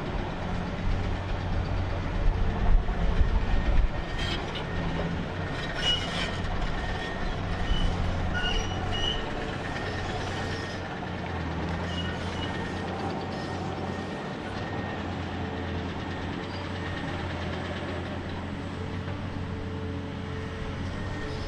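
Heavy diesel engine of a Hyundai R1200-9 hydraulic excavator running steadily while loading trucks with rock, with a louder low rumble about three seconds in. A few knocks follow, along with several short high squeals from the machine.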